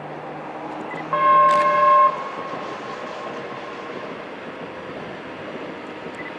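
HXD1D electric locomotive sounding its horn in one blast of about a second, a little over a second in, over the steady running noise of the passing passenger train.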